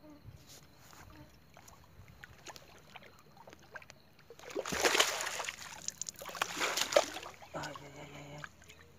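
A hooked carp thrashing and splashing in shallow water at the bank as it is brought in. After a quiet start, a burst of splashing and rustling grass begins about halfway through, and a short voice is heard near the end.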